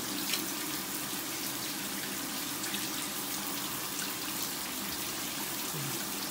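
Shower water running steadily onto a tiled floor, a constant even rush.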